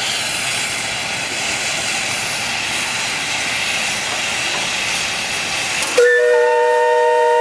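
Steady hiss of escaping steam. About six seconds in it cuts to a steam calliope sounding several clear whistle notes at once, held steadily.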